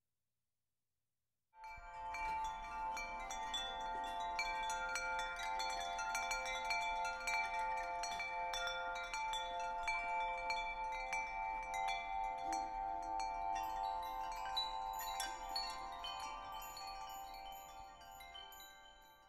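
Chimes tinkling: many light strikes over a bed of sustained, overlapping ringing tones. They start after about a second and a half of silence and fade out near the end.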